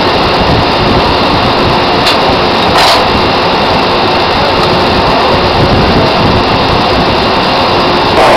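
Loud, steady machinery noise on an offshore drilling rig's floor while pipe is pulled out of the hole, with faint steady tones and a brief burst of noise about three seconds in.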